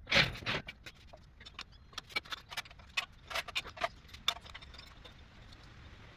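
A sharp knock right at the start, then a run of irregular light metallic clicks and clinks from hand tools and bolts being handled on the engine, which thin out about four seconds in.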